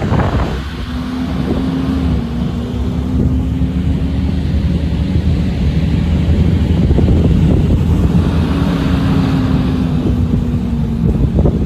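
Car engine and road noise while driving, a steady rumble with an engine tone that dips slightly twice, and wind on the microphone.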